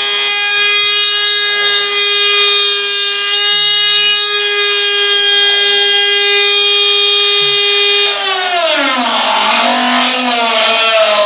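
Electric power tool running at a steady high-pitched whine. About eight seconds in it drops in pitch and wavers up and down as the tool bogs under load while cutting or drilling.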